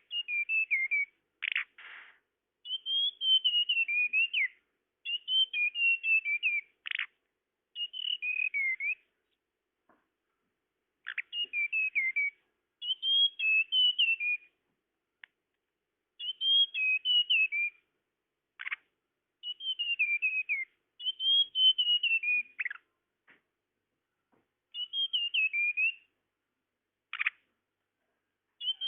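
Tledekan bird song played as a trapping lure: short, wavering, falling whistled phrases, each a second or two long, repeated again and again with brief gaps. A few short sharp single notes fall between the phrases.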